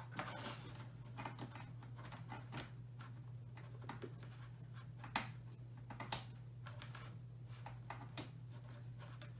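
Cable plugs being fitted into the rear ports of an Amiga computer. The plastic connectors and cables give scattered clicks and light knocks, the sharpest about five seconds in, over a steady low hum.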